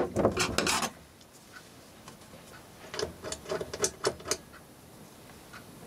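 Push buttons on a three-phase electronic electricity meter clicking as they are pressed, a quick run of clicks about three to four and a half seconds in. A brief louder sound comes at the very start.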